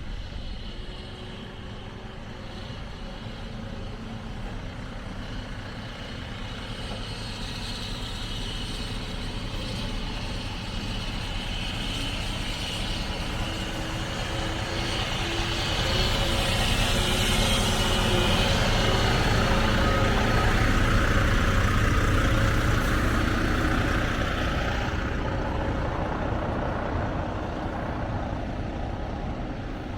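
Heavy truck running down the road, engine and road noise steady at first, growing louder about halfway through, then easing off.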